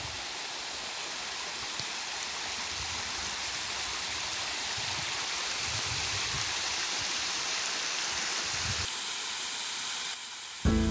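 Shallow mountain stream running over rock slabs and small cascades: a steady rushing of water. Background music comes in right at the end.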